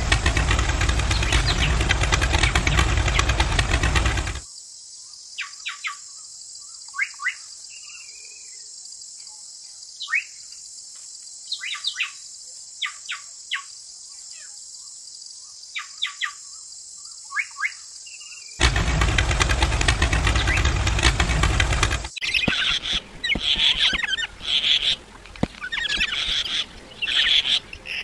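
A small motor runs for about four seconds. Then come a quiet stretch with scattered short bird chirps, the motor again for a few seconds, and a livelier run of bird chirping near the end.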